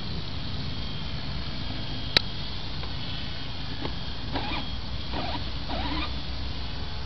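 Faint high whine of a small RC parachute aircraft's motor in flight over steady wind noise on the microphone, with one sharp click about two seconds in and a few short faint sounds near the middle.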